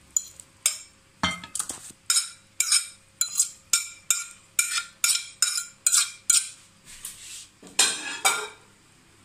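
Metal fork scraping and tapping against a ceramic plate as chopped vegetables are pushed off it into a bowl: a quick run of clinks, about three a second, then a longer scrape near the end.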